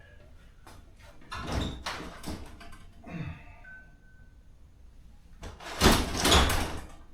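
Garage door being worked by hand to reattach it to the opener's latch: a clatter about a second and a half in, then a louder rattling thud about six seconds in.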